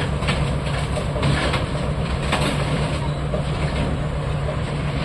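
Tracked excavator's diesel engine running steadily, a low even drone with a few faint clicks over it.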